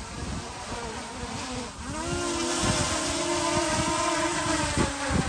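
DJI quadcopter drone's propellers buzzing, the whine rising in pitch about two seconds in and then holding steady. Gusty wind buffets the microphone throughout.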